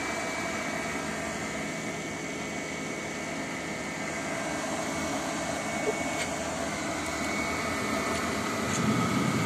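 Combustion-air blower fan of a homemade waste-oil boiler running steadily on a PWM speed regulator: a steady whirring with a thin high whine. A lower rumble grows louder near the end.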